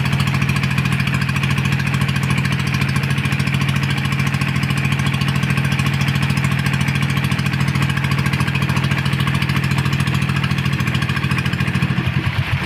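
Engine of a small wooden motorboat running steadily at constant speed, a fast even putter with a strong low hum; it wavers briefly near the end.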